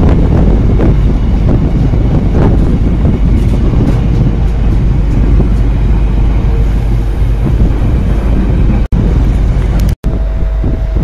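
Container freight train wagons rolling past close by: a loud, steady rumble of wheels on rail, with wind buffeting the microphone. The sound cuts out sharply twice near the end.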